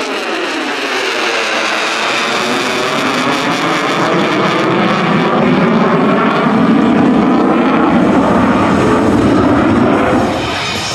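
A USAF F-35A's Pratt & Whitney F135 jet engine passing overhead during a hard display turn, a loud rushing jet noise whose pitch bands sweep down and back up as the aircraft moves. The sound swells about six seconds in and eases off near the end.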